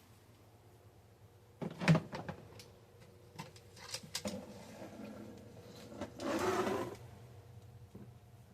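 Knocks and clatter from handling a portable washing machine and its parts, with the loudest knock about two seconds in and a brief rushing noise around six seconds in.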